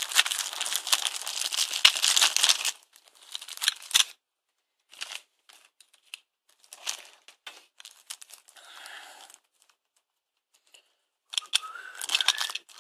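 Clear plastic packaging crinkling and rustling as it is handled and pulled open: a dense stretch for the first few seconds, then scattered short crinkles, a brief pause, and another burst near the end.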